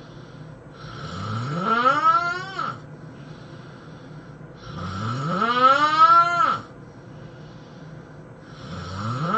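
A man snoring loudly, three snores about four seconds apart, the third starting near the end. Each snore climbs steadily in pitch for about two seconds and then breaks off.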